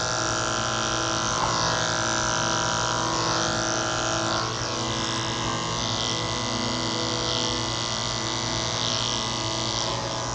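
Electric dog grooming clippers running steadily with a constant hum while trimming the hair under a cocker spaniel's ear.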